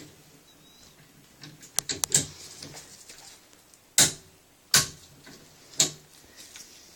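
Faint ticking as a click-type torque wrench is dialled to 35 foot-pounds, then three sharp metallic clicks about a second apart as it is fitted to the AR-15 barrel nut and pulled down.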